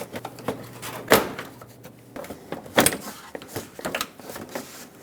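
A plastic cover over the radiator support being lifted off after its push clips were removed: handling rattles and scrapes, with sharp plastic knocks about a second in and again near three seconds in.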